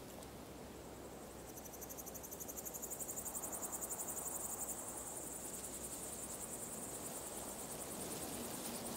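An insect chirring with a high, rapidly pulsing trill that comes in about a second and a half in, swells, then holds steady, over a faint steady background hiss.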